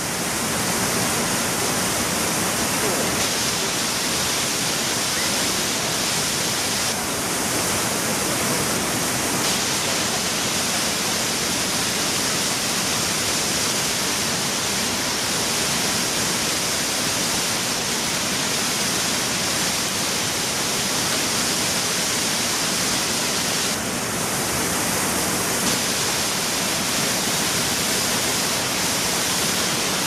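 Steady, unbroken rushing of a waterfall pouring over rocks.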